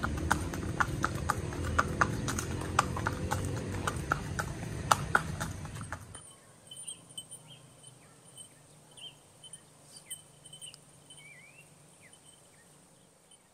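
Horse's hooves clip-clopping at a walk, a steady beat of about three hoof falls a second, for about six seconds. Then the hoofbeats stop and only faint high chirps remain.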